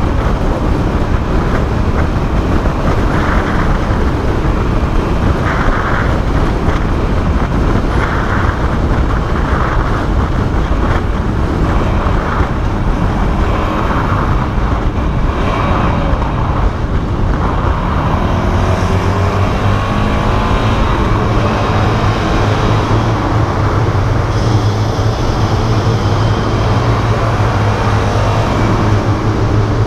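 Motorcycles at expressway speed, heard from a moving bike: heavy wind rumble over engine noise. Past the middle an engine's pitch sweeps up and then holds a steady drone.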